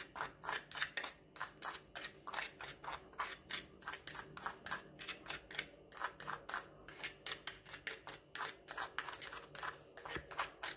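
Metal spoon stirring dry seasoning powder in a small bowl: a run of quick scraping clicks of spoon against bowl, about four a second.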